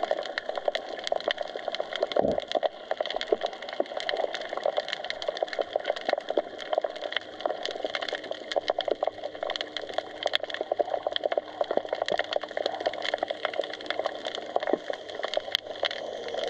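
Underwater crackling: a dense, steady stream of small clicks and snaps, with one low thud about two seconds in.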